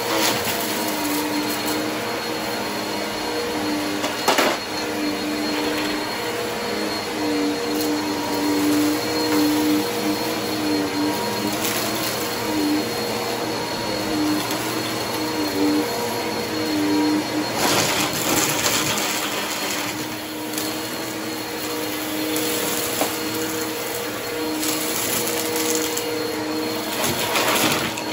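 Two upright bagless vacuum cleaners running together, a steady motor hum and whine. Bursts of rattling crackle come as sequins, buttons and small plastic bits are sucked up, loudest about two-thirds of the way in.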